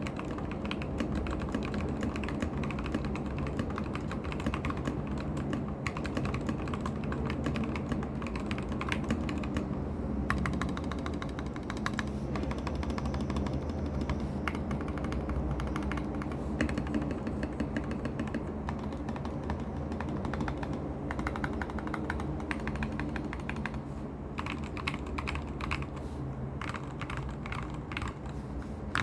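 Typing on a Royal Kludge RK G68 mechanical keyboard with Gateron Milky Yellow linear switches and PBT keycaps: a fast, continuous run of key clacks.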